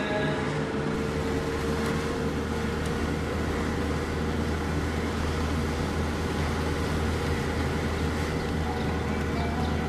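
Steady low drone of a car driving slowly, engine and road noise heard from inside the car.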